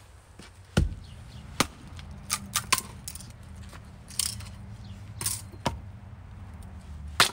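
Firewood being split with an axe on a wooden stump chopping block: a string of sharp wooden knocks and cracks, a few of them close together, the loudest near the end.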